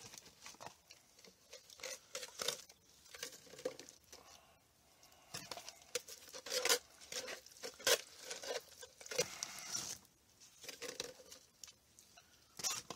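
Wooden stick stirring Quikrete sand topping mix into water in a plastic coffee can: irregular scraping and stirring strokes as the dry cement is worked into the water.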